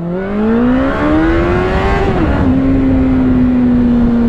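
Suzuki GSX650F's inline-four engine pulling up through the revs under acceleration, then dropping in pitch at a gear change about two seconds in and running on at a steady, slowly falling note, with wind rushing over the microphone.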